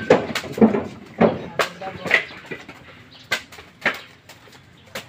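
Coconuts being tossed by hand into woven baskets, each one landing with a sharp knock at irregular intervals, several a second at first and thinning out after about two seconds.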